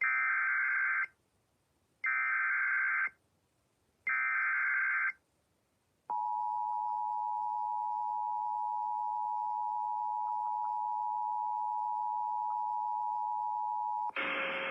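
Emergency Alert System header: three one-second bursts of buzzy digital data tones about a second apart, then the two-tone EAS attention signal held steady for about eight seconds. It cuts off near the end as another sound starts. The sequence announces an incoming Severe Thunderstorm Warning.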